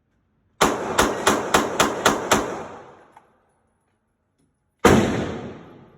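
A rapid string of seven gunshots about a quarter second apart, each ringing out and trailing off. A single further shot follows near the end.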